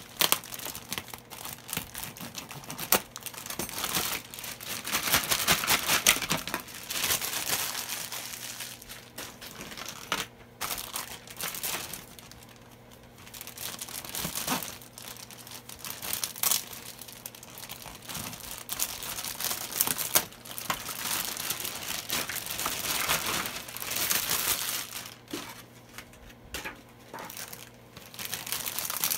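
Thin plastic bags crinkling and rustling as they are opened and emptied by hand, in irregular bursts with a few sharp clicks.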